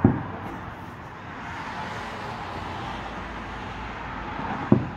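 Two distant fireworks bursting as dull booms, one right at the start and one near the end, over a steady hum of road traffic.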